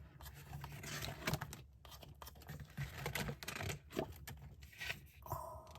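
Paper rustling with light irregular taps as the pages of a desk calendar are handled and turned.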